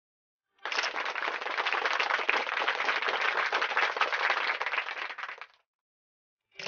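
Applause: many hands clapping together, starting about half a second in and dying away after about five seconds.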